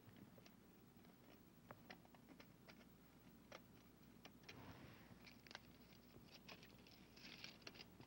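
Faint crinkling of aluminium foil and light ticks of a scalpel blade as foil pressed onto a plaster model is trimmed, over a steady low hum. The crinkling thickens about halfway through and again near the end.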